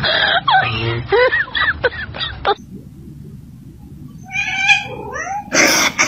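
A puppy's quick high squeaks and whines, five or six in a row, stop suddenly. Then a cat meows once with a rising pitch, and a short loud burst of noise follows near the end.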